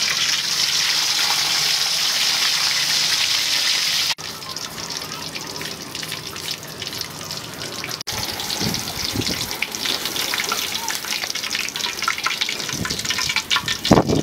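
Pork belly deep-frying in hot oil in a wok: a steady sizzle with fine crackling, as the skin blisters into crispy pork. A few knocks near the end.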